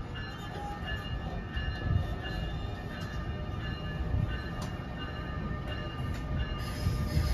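NJ Transit Comet passenger coaches pulling out and rolling past on the rails: a steady low rumble of wheels on track, with faint high-pitched steady tones above it, getting louder near the end as the train picks up speed.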